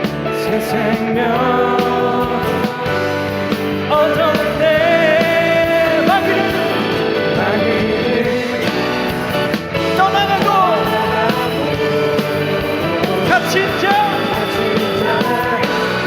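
Music: a Korean contemporary worship song, a voice singing a melody over full instrumental accompaniment.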